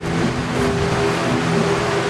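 Background music: sustained notes that change in steps over a dense, rushing wash, starting abruptly.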